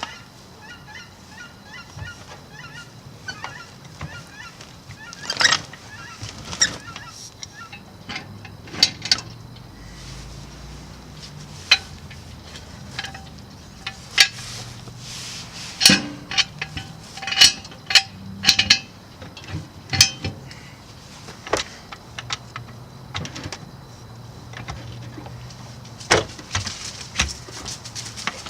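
Metal parts and hand tools clinking and clanking at irregular intervals as a fuel tank is bolted into a car's underside, with a few brief pitched sounds in between.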